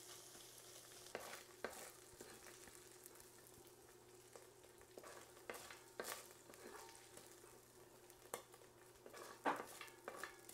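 Browned ground meat sizzling faintly in a heavy pot while a spoon stirs and scrapes it, with scattered clicks and knocks of the utensil against the pot and a steel bowl as the meat is scooped out.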